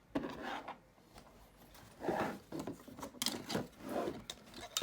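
Handling noise from rigid 3D-printed plastic parts of a MOLLE radio mount being fitted by hand: irregular rubbing and scraping with a few sharp clicks, about five bursts in all.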